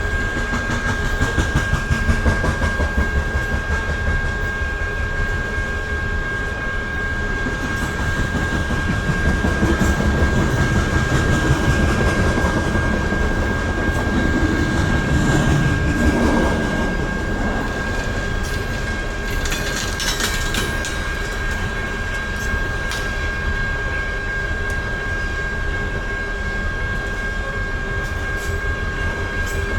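Loaded BNSF coal train cars rolling past, their wheels clattering rhythmically over the rail joints, with a steady high ringing tone throughout and a burst of sharp clicks about twenty seconds in.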